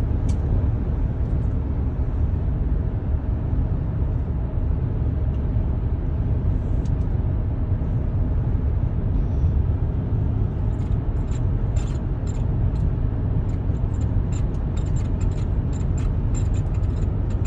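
Steady road and engine rumble inside the cabin of a 2023 Kia Sorento at highway speed. From about ten seconds in, many short, high-pitched squeaks come in quick, irregular succession from the steering wheel.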